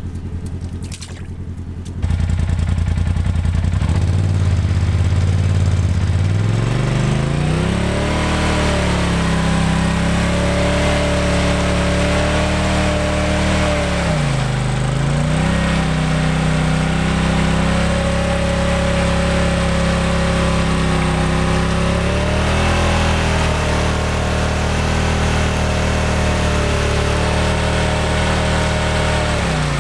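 Polaris RZR Turbo side-by-side engine revving up and held at high revs under load as the stuck machine is driven out of a deep mud rut, with one brief dip in revs about halfway through.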